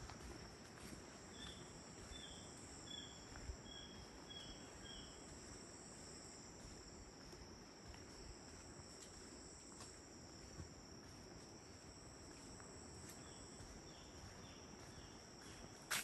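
A steady high-pitched insect drone in rainforest. Over it, a bird gives a run of about six short notes that step slightly downward, once early on and again near the end.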